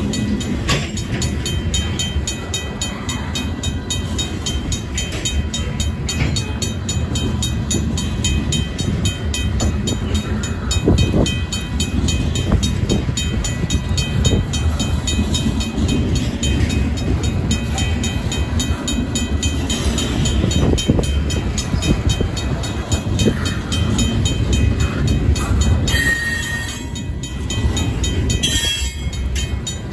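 Freight train's covered hopper cars and then tank cars rolling past close by, wheels rumbling and clattering over the rail joints. Over it a mechanical crossing bell (RACO) rings with steady, regular strokes.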